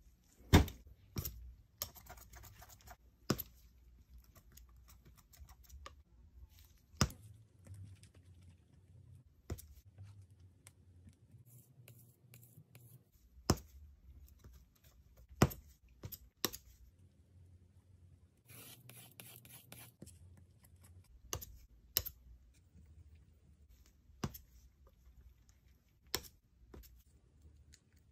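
Metal palette knife mixing and spreading thick paint on a palette: scattered sharp taps and clicks of the blade against the surface every second or two, with a few longer scratchy scraping strokes.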